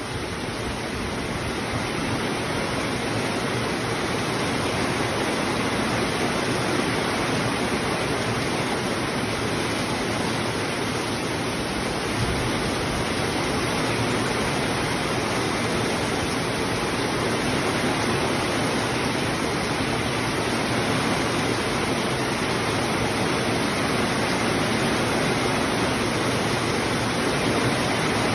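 Heavy rain pouring down in a steady, dense hiss, a little louder over the first few seconds.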